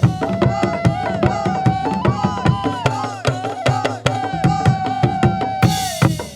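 Sundanese traditional ensemble music: bamboo calung renteng and bedug drums struck in a fast, dense rhythm, with a held melody tone above it. A brief hissing crash comes near the end.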